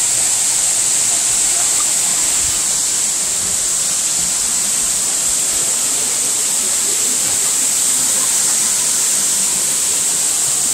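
Loud, steady rush of a waterfall's falling water, with a strong hiss.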